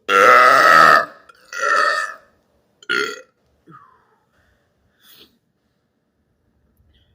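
A young man burping deliberately, three times in quick succession: a loud burp about a second long, a shorter one, then a brief third, followed by a couple of faint small sounds.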